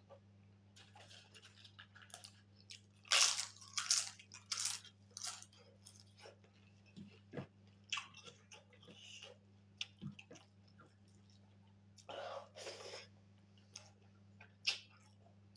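Close-miked chewing and crunching of pork and white rice, in irregular wet mouth noises, loudest about three to five seconds in and again near the end. A steady low hum runs underneath.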